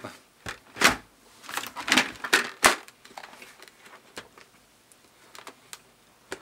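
Plastic clicks and knocks of an LS2 FF399 Valiant modular motorcycle helmet's chin guard and visor being swung and latched, the chin guard carrying the visor with it. The loudest clicks come in the first three seconds, then fainter ticks, with one sharp click near the end.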